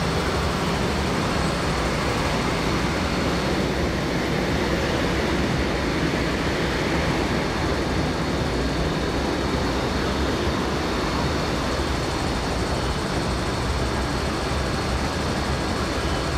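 MTR Kwun Tong Line C-Train running through a station platform without stopping: a steady, even rush of train running noise.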